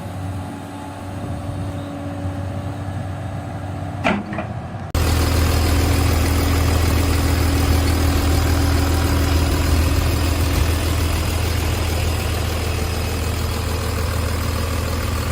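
Volvo EC300DL excavator's D8H diesel engine running steadily at idle. A brief sharp squeak is heard about four seconds in, and about a second later the engine sound jumps abruptly louder and fuller, then holds steady.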